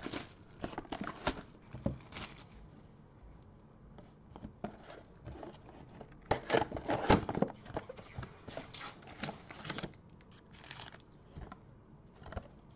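Plastic wrap being torn and crinkled off a cardboard trading-card box, then the box's cardboard flaps pulled open: irregular rips and crackles, loudest in a flurry about six to seven seconds in.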